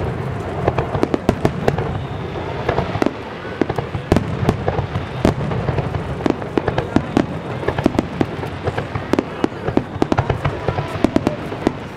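Fireworks barrage: shell bursts going off in quick, irregular succession, several a second, over a continuous low rumble of explosions.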